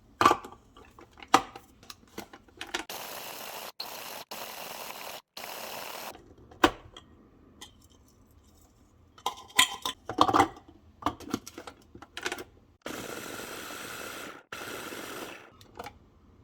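Kitchen cooking sounds: utensils and dishes clinking and knocking several times, with a few bursts of steady hissing noise that start and stop abruptly.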